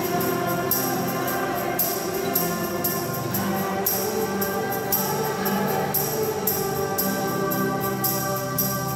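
Church music: voices singing with instrumental accompaniment, and a tambourine shaken in a steady beat.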